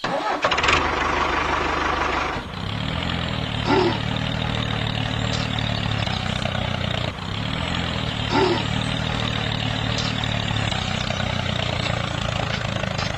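A vehicle engine running steadily, like an idling truck or tractor, with a short squeak about every four and a half seconds; the sound repeats as if looped.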